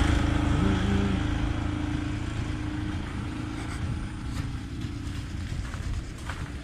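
A road vehicle going past and fading steadily into the distance.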